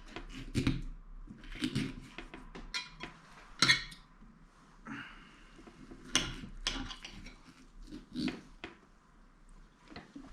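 Cutlery and dishes clinking and scraping at a table as food is served, in scattered irregular clicks, the sharpest about three and a half seconds in.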